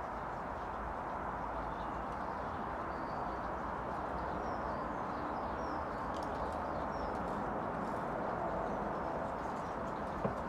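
Steady outdoor background noise with faint birds chirping now and then, and one short click near the end.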